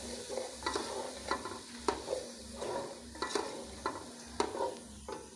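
Wooden spatula scraping and knocking around an aluminium pot in regular strokes, roughly every half second, while a masala of onions, ginger-garlic paste and ground spices sizzles in oil as it is fried (bhuna).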